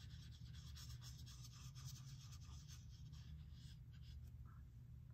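Faint swishing and scratching of a watercolor paintbrush stroking across paper, heaviest in the first few seconds and lighter after, over a low steady hum.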